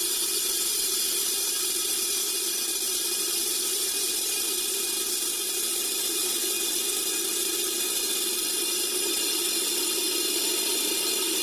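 A steady stream of thousands of BBs poured into a container, one long unbroken rattling hiss. Each BB stands for a nuclear bomb, so the long pour is the sound of the size of the U.S. nuclear arsenal.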